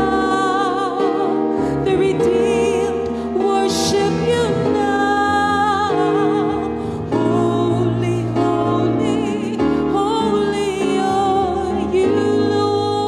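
Slow Christian worship song playing: a melody with vibrato over sustained chords.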